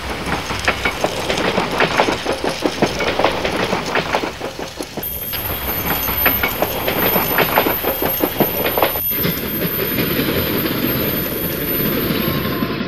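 Train running along its track: a steady rattle full of rapid clicking from the wheels on the rails.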